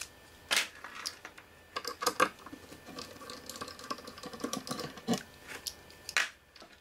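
Irregular light clicks, taps and knocks from a metal electronics enclosure and tools being handled during disassembly.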